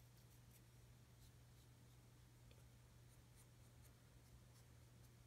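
Near silence: room tone with a faint steady low hum and a few very faint ticks.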